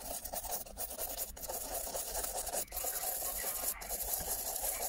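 Toothbrush bristles scrubbing soapy water over a plastic computer keyboard and into its empty key wells: a steady scratching rub that is briefly interrupted a few times.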